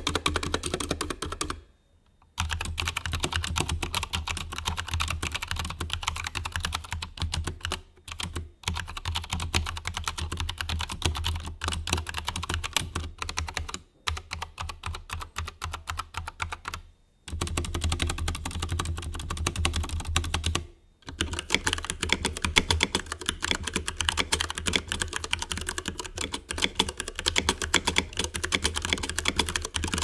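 Fast typing on 60% mechanical keyboards with brown tactile switches, in turn a Velocifire Mini with Outemu Browns, an Anne Pro 2 with Kailh Browns and an iKBC Poker 2 with Cherry Browns. Dense runs of key clacks are broken by several short silences where one typing clip gives way to the next.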